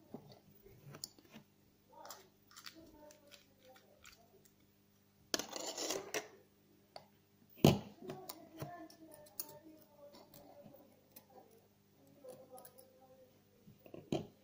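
Small clicks and rustles of hands handling a leadcore fishing rig, with a longer rustling scrape about five and a half seconds in and a sharp knock, the loudest sound, just under eight seconds in.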